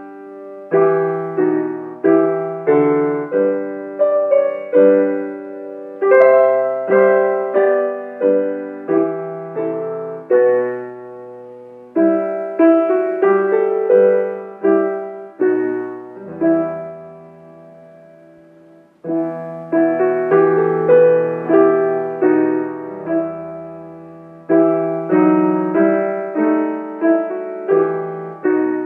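Piano playing a slow hymn tune in full chords, each chord struck and left to fade. Near the middle one chord is held and dies away before the next phrase begins.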